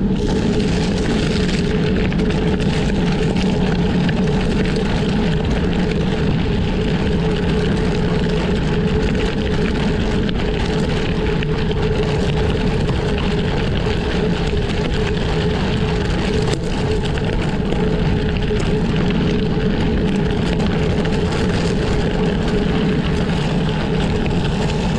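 Gravel bike's Continental Terra Speed 700x40 tyres rolling fast over a gravel track: a steady rumble and hiss with a constant hum under it.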